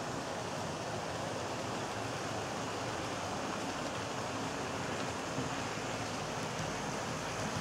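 HO-scale model trains running on the layout: a steady whir of small motors and metal wheels rolling over the track, with a faint low hum underneath.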